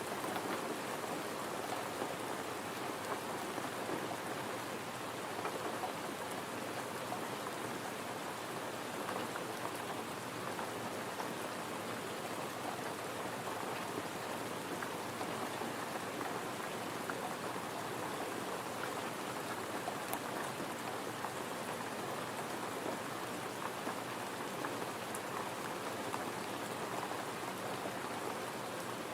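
Gentle rain falling steadily: a dense, even patter of drops.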